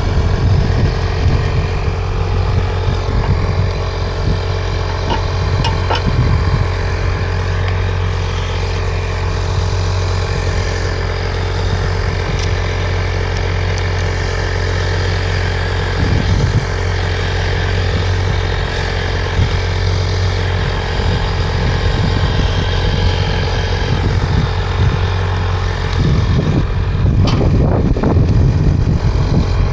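A vehicle engine running steadily at a constant speed, a low drone with road noise, swelling a little louder near the end.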